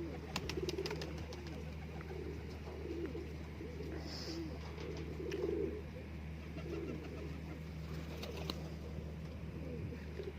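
Domestic pigeons cooing, with repeated low warbling coos about once a second over a steady low hum.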